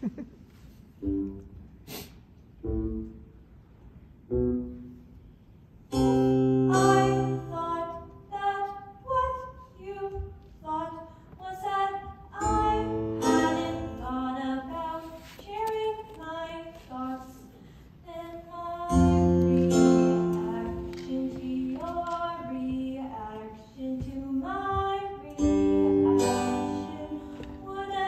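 A show song sung on stage with instrumental accompaniment: for the first few seconds only short, separate accompaniment notes, then the singing comes in about six seconds in and carries on over the accompaniment.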